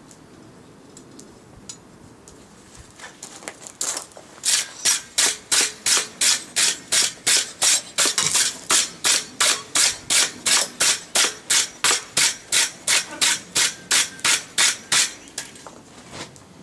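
Wire brush scrubbed back and forth over a freshly forged steel awl resting on the anvil, cleaning the forge scale off the metal: a fast, even rasping at about three strokes a second that starts a few seconds in and stops near the end.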